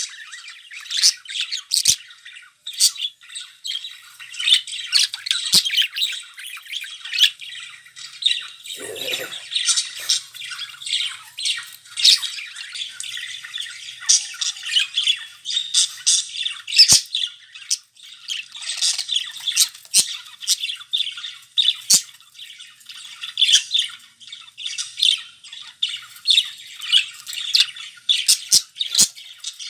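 Several budgerigars chattering and warbling without a break, with frequent sharp chirps and squawks.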